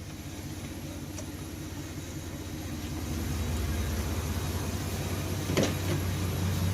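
2001 Chevy Blazer's 4.3-litre V6 idling smoothly just after start-up, running on a replacement alternator and a new belt; it gets louder about halfway through. A short click comes near the end.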